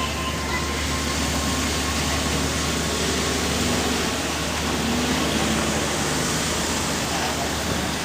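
A single N700 series Shinkansen car rolling slowly on rails while being towed: a steady, even noise without strokes or rhythm.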